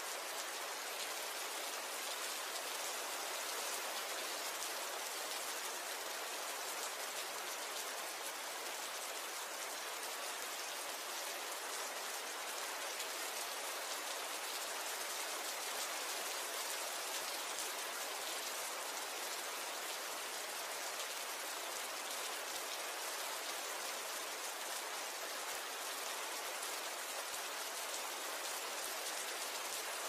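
Steady rain falling, a continuous even hiss of many drops that neither builds nor eases, with no thunder.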